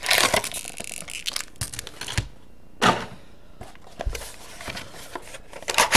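Foil and cardboard trading-card packaging crinkling and tearing as a box is opened by hand, with sharper crackles about three seconds in and near the end.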